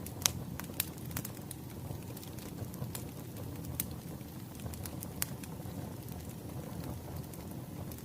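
Wood fire crackling: a steady low rumble with sharp, irregular pops and snaps, the loudest about a quarter of a second in.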